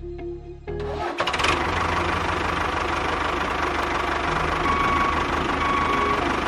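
A motor engine starts up about a second in and keeps running steadily with a fast low pulsing, over background music.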